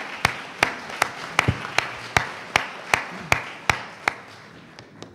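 Applause: sharp, even hand claps close to the microphone, about two and a half a second, over fainter clapping from the audience, dying away about four seconds in.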